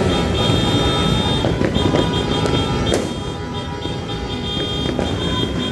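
Dense street traffic noise of motorbike and car engines, with a high-pitched horn-like tone sounding on and off and a couple of sharp pops.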